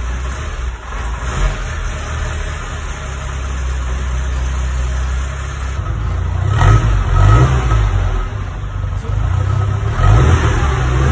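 Volkswagen Golf Mk2 GTI engine idling through its exhaust, then blipped several times in the second half, each rev rising and falling quickly.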